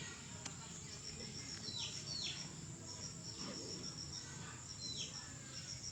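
Insect trilling in short runs of rapid high pulses that keep breaking off and starting again, with a few short falling chirps from a bird.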